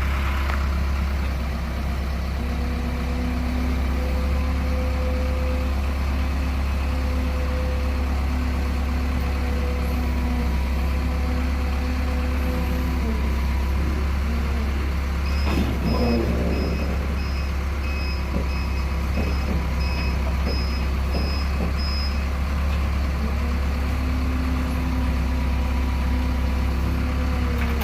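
Telehandler (extended-reach off-road forklift) engine running steadily under load. Its reversing alarm beeps regularly for several seconds about halfway through, with a few knocks at the start of the beeping.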